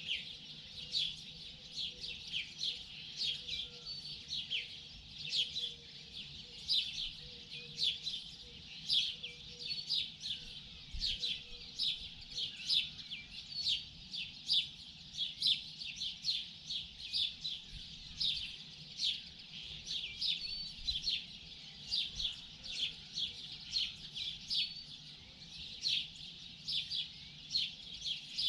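Several small songbirds chirping and twittering in a continuous morning chorus: rapid short high chirps, several each second.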